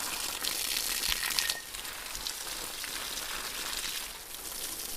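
Steady crackling hiss, like static or frying, a little louder for the first second and a half.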